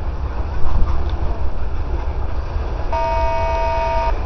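Freight train of covered hopper cars rolling past with a steady low rumble. About three seconds in, a horn sounds once for about a second, then cuts off.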